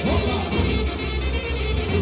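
Live band playing Macedonian folk dance music for an oro circle dance, with a steady bass beat.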